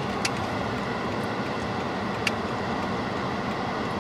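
Steady noise heard from inside a stopped car, with two faint clicks, one near the start and one past the middle.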